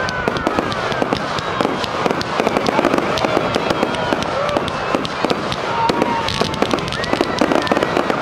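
Aerial fireworks going off in quick succession: a dense, continuous stream of bangs and crackles from shells bursting overhead.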